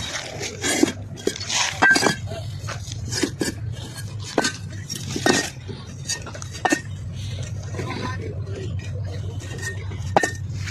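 Fired clay bricks knocking and clinking against one another as they are handled and stacked: irregular sharp clinks, some with a short ringing note, over a steady low hum.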